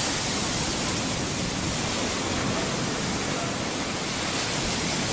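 Mediterranean Sea waves washing on a sand beach: a steady rushing hiss that swells slightly just after the start.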